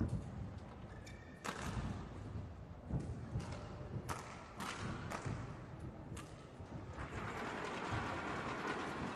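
Sharp knocks and thuds on a badminton court, coming about one every half second to second. About seven seconds in, a steadier hall noise comes up under them.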